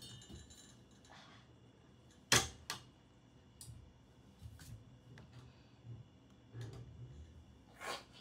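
A few sharp knocks and squeaks of hands, bare skin and feet against a metal dance pole during a climb and descent, spread out with quiet between them. The loudest comes about two seconds in, and there is another near the end as the climber comes down.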